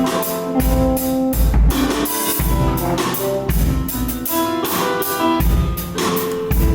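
Rock band playing live without vocals: guitars holding chords over a drum kit, with a steady kick-drum beat.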